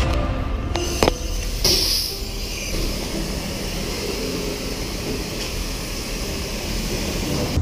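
Self-serve car wash high-pressure wand spraying water onto a car, a steady hiss of spray. Two sharp clicks come about a second in, and a louder hiss about two seconds in.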